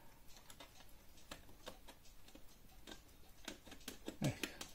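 Faint, fairly even ticking of a mechanical clock, about two and a half ticks a second, with a slightly stronger metallic knock near the end.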